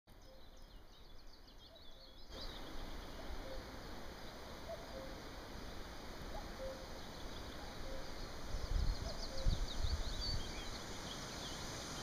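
Common cuckoo calling its two-note "cuck-oo" over and over, about once a second and faint, under higher, quicker twittering from small songbirds. A low rumble comes through from about two-thirds of the way in.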